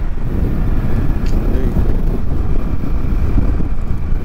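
Wind buffeting the microphone over the steady running of a scooter's engine and tyres on the road while riding.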